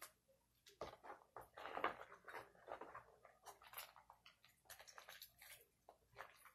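Faint, irregular wet squelches and clicks of old slime being squeezed and pulled.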